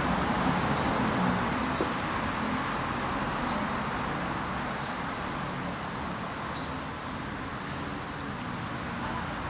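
Steady city traffic noise, an even hum that eases slightly through the middle, with a few faint high chirps.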